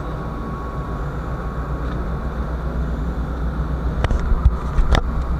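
Steady low rumble on a ship's open deck, with two sharp knocks about four and five seconds in.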